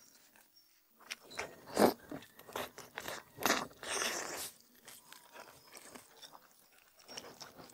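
Close-miked eating: a person biting and chewing braised oxtail, with several sharp, crunchy bites in the first half, the loudest near two seconds in, followed by quieter chewing.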